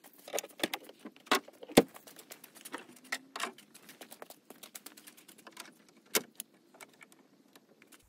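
Metal clicks, clanks and rattles of hands fitting a car battery and its terminal clamps under the raised bonnet: a string of sharp knocks, the loudest a little under two seconds in and another about six seconds in.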